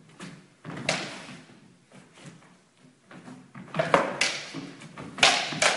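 Singlesticks clashing in a fast exchange: sharp knocks, one just before a second in, then a quick flurry about four seconds in and another just after five seconds, each echoing in the hall.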